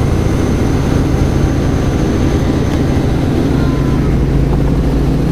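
Helicopter engine and rotor noise heard inside the cabin in flight: a loud, steady low drone with a hiss above it.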